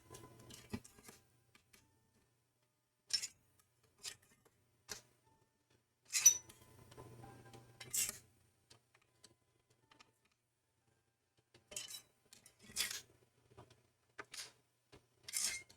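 Scattered sharp metallic clicks and light scrapes of a hand driver seating on and turning the spring-loaded heatsink screws of a Mac Pro CPU tray a half turn at a time, about seven clicks spaced a second or more apart.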